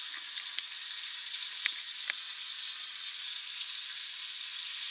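Thin strips of raw meat sizzling steadily in a hot frying pan, with two faint ticks a little under halfway through.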